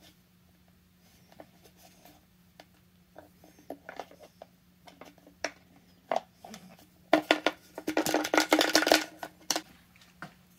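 Plastic chainsaw fuel tank and its lines being handled: scattered light clicks, then a few seconds of rapid clicking and rattling near the end as the tank is tipped and the fuel line's filter knocks against the bottom inside it.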